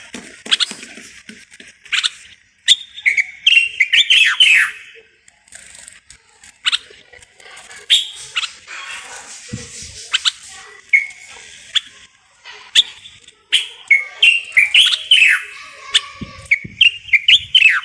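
Common bulbul singing: loud, short whistled phrases of rising and falling notes, bunched into two rapid bursts with scattered single notes and sharp clicks between.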